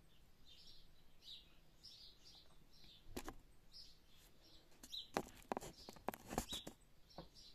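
Faint bird chirping: short high chirps repeated about every half second to a second. A cluster of sharp clicks and knocks about five to six and a half seconds in is the loudest sound.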